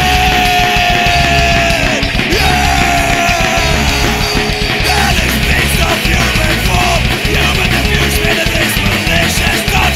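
Punk rock song played by a full band, loud and dense, with long held high notes over the first few seconds.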